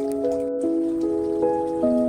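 Calm background music of held, smoothly overlapping notes, a new note coming in about every half second.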